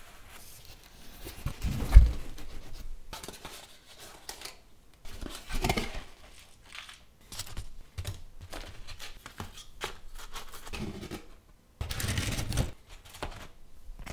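Cardboard pizza boxes being handled and slid on a wooden table: irregular scraping, rustling and taps, with one heavy thump about two seconds in and longer scrapes near the middle and end.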